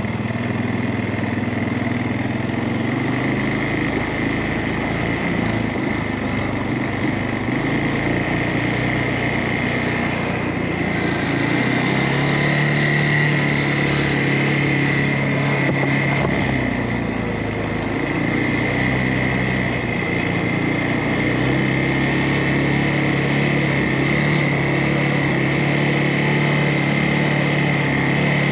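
CFMOTO ATV engine running as the quad rides along a trail, its engine speed rising about twelve seconds in, easing off a few seconds later and rising again past the twenty-second mark, with a steady high whine throughout.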